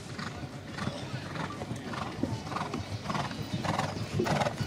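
Bay show-jumping horse moving over a grass arena: hoofbeats and the horse's breathing in a regular rhythm of about two a second.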